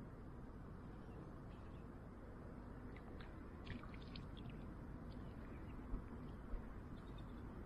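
Quiet open-air background: a steady low rumble, with a few faint, short bird chirps about three to four seconds in and two soft knocks about six seconds in.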